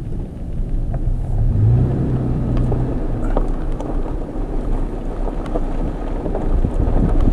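Toyota FJ Cruiser driving on a dirt track: a low engine and tyre rumble with small crunches of gravel and wind buffeting the microphone, growing louder near the end.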